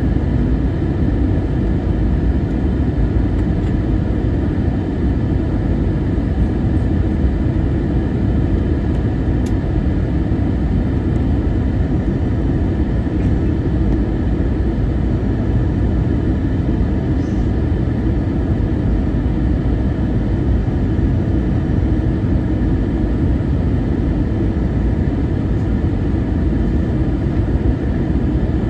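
Cabin noise of an Airbus A321-200 on approach, heard inside the cabin from a seat over the wing: a steady low rumble of the engines and air rushing past the airframe, unchanging throughout.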